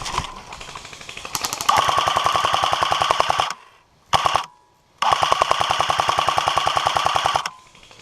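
Airsoft M249 light machine gun, an electric gun, firing full-auto bursts of rapid shots: a long burst, a brief one, then another long burst.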